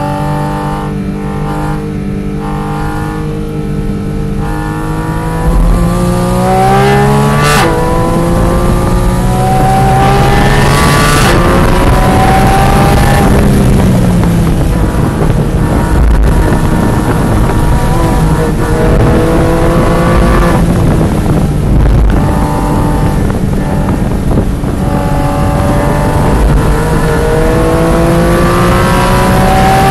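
Porsche 718 Cayman GT4 RS's naturally aspirated flat-six, heard from inside the cabin on track. It runs steady at part throttle for a few seconds, then is driven hard, rising in pitch with quick upshifts about 7.5 and 11 seconds in. It eases off around 14 seconds, then climbs and dips again, rising once more near the end.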